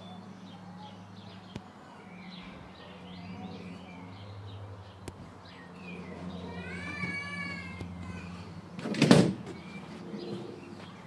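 Outdoor garden ambience with small birds chirping and a steady low hum. A drawn-out, arching animal call comes about seven seconds in, and a loud rustling thump about nine seconds in.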